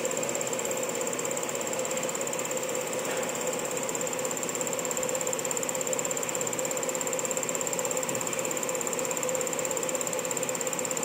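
Common-rail injector test bench running steadily: an even mechanical hum with a constant low tone and a constant high whine.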